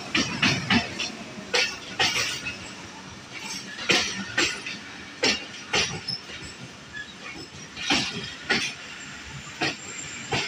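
Passenger train wheels clacking over rail joints, heard as sharp knocks in pairs and small groups spaced a second or two apart, over a steady running rumble.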